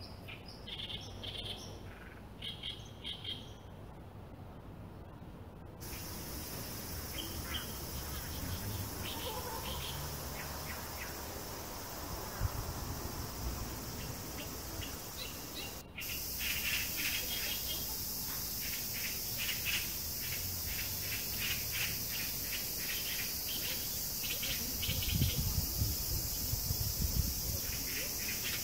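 Forest birds and insects: scattered bird chirps at first, then a steady high insect drone that comes in suddenly about six seconds in. In the second half, rapid chirps repeat several times a second over the drone, with a few soft low thumps near the end.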